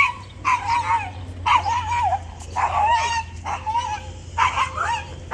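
A dog barking and yipping again and again, about seven short high-pitched calls whose pitch bends within each one.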